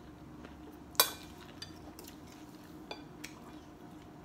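A metal spoon clinking against a ceramic soup bowl while eating: one sharp clink about a second in, then a few lighter taps.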